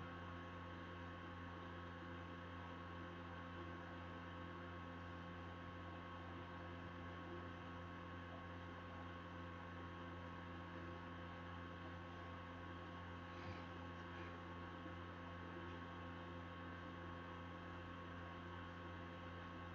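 Steady electrical hum with a few fixed tones above it over faint hiss, with one faint brief scratch about two-thirds of the way through.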